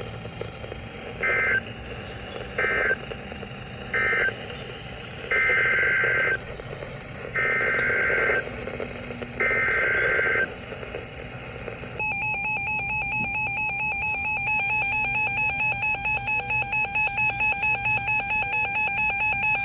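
Emergency Alert System data bursts: three short screeching bursts (the end-of-message code) and then three longer bursts (the SAME header of the next alert). About twelve seconds in, the loud steady EAS attention-signal tone starts.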